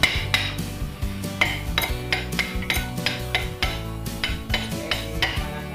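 Repeated light metallic clinks and taps, about two a second, each ringing briefly, from hand-tool work on a motorcycle's rear wheel hub and brake drum.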